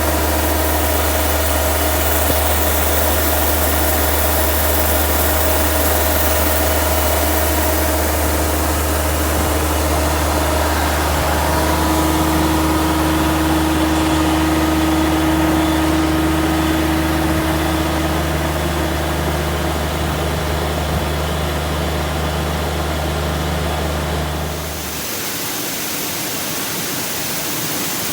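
Rice combine harvester's engine running steadily, a deep drone with a steady whine above it. Near the end the drone cuts off abruptly, leaving an even hiss.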